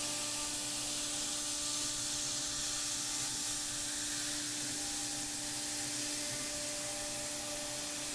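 Thermwood five-axis CNC router running, its 1/8-inch cutter routing holes in polyethylene, with a steady hum from the spindle under an even hiss of compressed air blowing on the tool to keep plastic from building up on the cutter.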